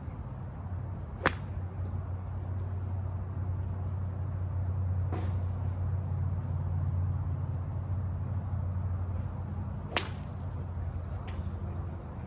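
Golf clubs striking balls at a driving range: two sharp, loud cracks about eight to nine seconds apart, with fainter strikes between and near the end, over a steady low hum.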